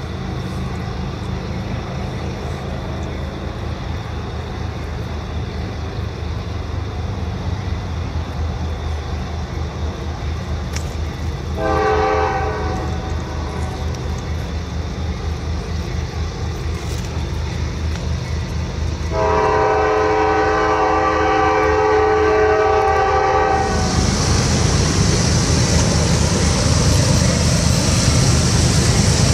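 Norfolk Southern GE diesel locomotives approaching with a steady low engine rumble; the lead unit's air horn sounds a chord, a short blast about twelve seconds in and a long blast of about four seconds starting near nineteen seconds. Near the end the sound switches abruptly to a louder, steady hissing noise of another approaching train.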